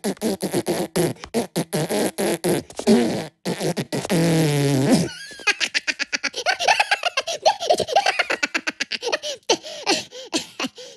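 Minions' cartoon fart sound effect: one drawn-out buzzing fart about four seconds in, lasting about a second. Before and after it come rapid, high-pitched cartoon giggling and laughter from the Minions.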